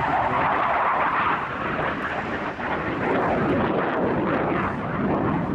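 Jet noise from an Aero L-159 ALCA light combat jet flying past in a display, a loud steady rush.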